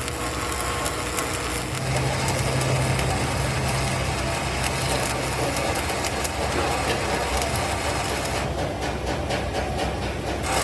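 A machine motor running with a steady low hum over a noisy clatter; from about eight seconds in, rapid regular ticking joins it.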